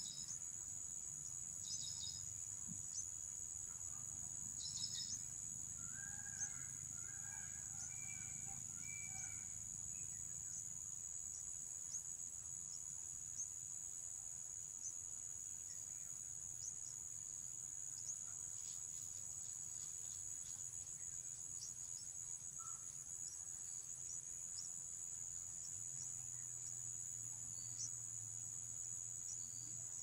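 Steady high-pitched chirring drone of insects, cricket-like. A few faint short chirps come in the first five seconds, and a faint warbling call about six to nine seconds in.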